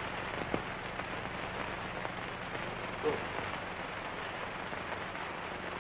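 Background hiss and crackle of an old 1940s film soundtrack with a steady low hum, a few faint clicks, and one short faint sound about three seconds in.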